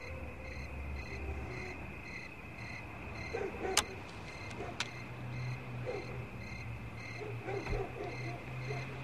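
Crickets chirping in an even, repeating rhythm over a low steady hum. Two sharp clicks come about four and five seconds in.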